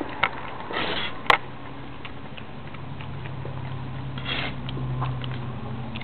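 Someone eating from a plate: a few light clicks and taps at the plate, the sharpest about a second in, over a steady low hum.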